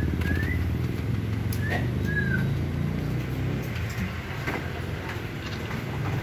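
A steady low rumble like a nearby engine or traffic, with three short bird chirps in the first two and a half seconds and a few light clicks as the plastic roof-rail base is handled.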